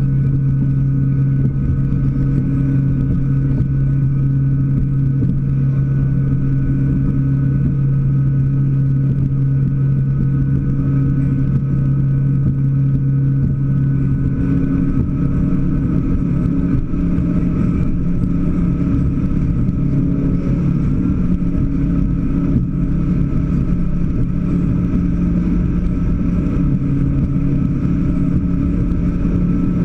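Scarab performance boat's inboard engine running steadily under way, a loud, even drone over a low rush of wind and water; about halfway through the engine note shifts a little higher.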